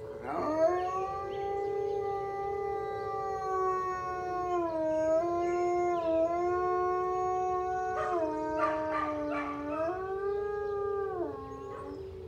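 High-content wolf dog howling in answer to a civil defense siren test: one long howl that swoops up at the start, wavers and steps down and back up in pitch several times, and falls away near the end. The siren's steady tone runs underneath.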